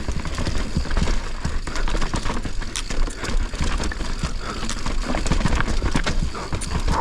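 Mountain bike rattling and clattering at speed over a rough, rocky trail, with many short knocks from the bike and tyres over a steady rumble of wind on the microphone.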